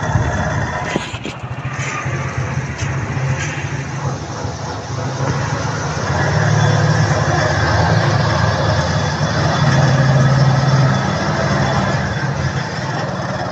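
Motorcycle engine running steadily while riding through a concrete underpass. It grows louder for a few seconds in the middle, while inside the enclosed tunnel.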